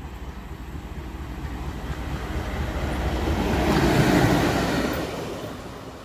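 Indian Railways locomotive running light, passing close by at speed. Its rumble and wheel noise build to a peak about four seconds in, then fade as it moves away.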